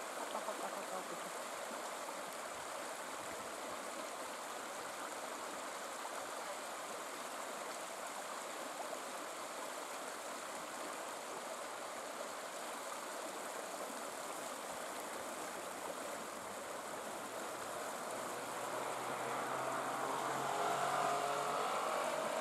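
River water flowing in a steady, even rush. Near the end a louder sound with a low hum swells over it.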